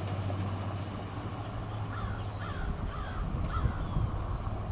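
A bird calling about five times in quick succession, each call short and falling in pitch, over a steady low hum.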